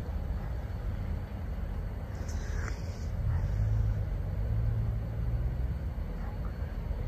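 Freight train cars rolling slowly past, giving a steady low rumble. A brief higher screech comes about two and a half seconds in, and a louder low drone swells through the middle.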